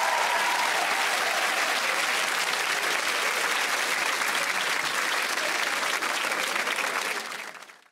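Studio audience applauding steadily, the clapping fading out near the end.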